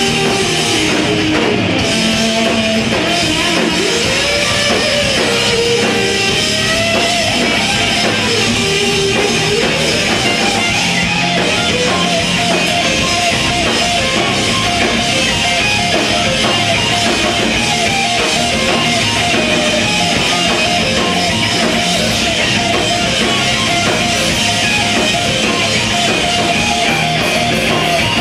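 Live progressive rock/metal band playing loud and steady: electric guitars, bass and drum kit, with a melodic line sliding up and down in pitch over the first ten seconds or so.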